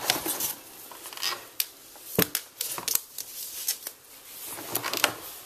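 Packaging being handled during an unboxing: cardboard and plastic rustling with scattered clicks and taps, and a sharper knock about two seconds in.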